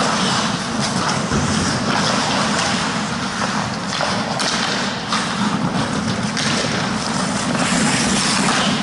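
Steady rushing noise of an indoor ice hockey rink picked up by a goalie's helmet camera, with skates and the mic's own rubbing blending into a continuous hiss. A few sharp clicks and clacks, from sticks and skates on the ice, stand out now and then.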